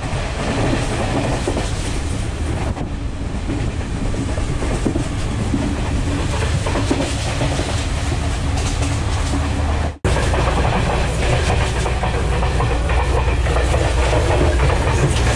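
S14 class train running on the rails, heard from inside the carriage: steady wheel-on-rail noise with clickety-clack from the track, broken once by a brief gap about ten seconds in.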